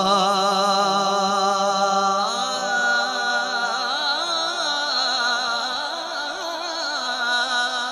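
A man sings a Punjabi Sufi kaafi solo. He holds one long opening note for about two seconds, then sings winding, ornamented lines with vibrato.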